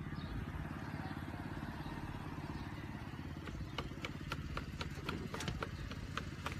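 A car's engine running low as it pulls up and stops, with a quick run of sharp, evenly spaced clicks starting about halfway through.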